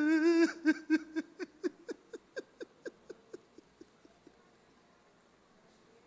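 A man weeping: a drawn-out cry breaks into a run of short sobs, about four a second, that fade away over about four seconds.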